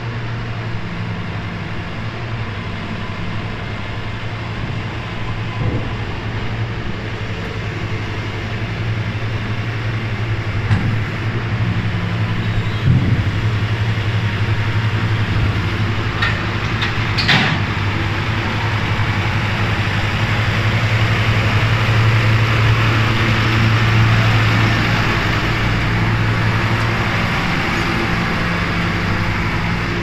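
Garbage truck's diesel engine running with a steady low hum, growing louder over the second half as it comes close. A few short clanks and a brief metallic clatter sound about halfway through.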